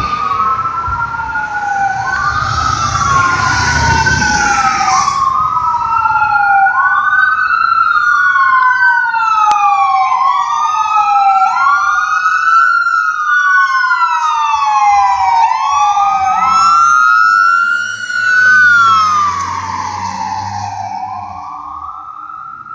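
Fire engine sirens wailing, at least two out of step with each other, each sweep rising and falling about every two seconds. They fade away near the end.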